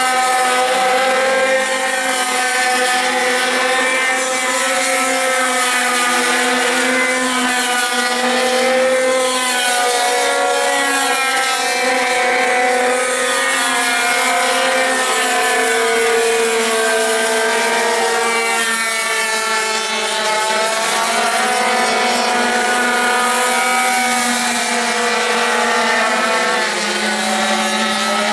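Several pocket bike (minimoto) engines racing at high revs, a continuous buzzing whine. The pitch of several overlapping engines rises and falls as the riders accelerate, brake and pass.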